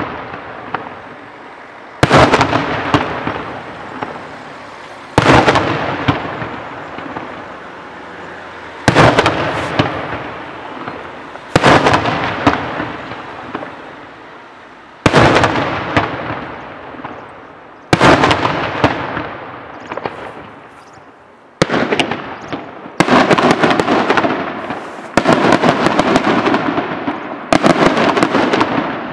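Daytime fireworks display: about ten loud aerial shell bangs, two to four seconds apart, each followed by a long crackling tail. The bangs come closer together and the crackle grows denser near the end.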